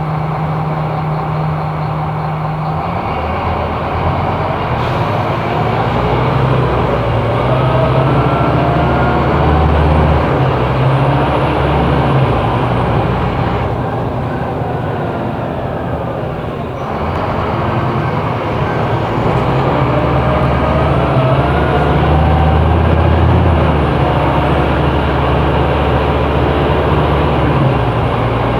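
Scania K270IB bus diesel engine with ZF automatic gearbox, idling and then pulling away about three seconds in, its note stepping up as the gearbox shifts, with a rising whine. The engine eases off briefly past the middle, then accelerates again.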